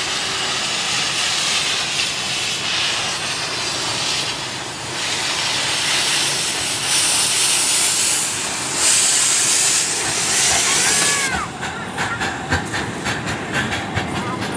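Miniature-gauge steam locomotive modelled on a rebuilt Bulleid 'Merchant Navy' 4-6-2, pulling away with steam hissing loudly in long surges. About eleven seconds in the hiss cuts off suddenly, and the coaches roll past with quick, regular clicking from the wheels.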